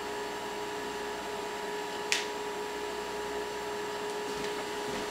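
A steady machine hum with two fixed tones, and one sharp snap about two seconds in.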